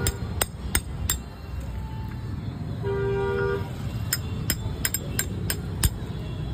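A steel chisel held against a coconut's shell is struck with a second, larger chisel to crack the shell: sharp metallic clinks, a few in the first second, then a quick run of them from about four seconds in. A vehicle horn toots briefly around the middle.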